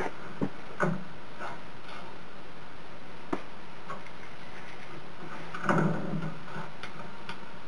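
A few light clicks and knocks of small Maglite flashlight parts being handled on a table, the loudest near six seconds in, over a steady hiss.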